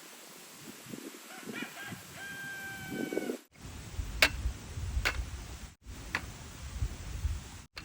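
A rooster crowing once, a broken start and then a held call of about a second and a half. After that come a low rumble and three sharp clicks about a second apart.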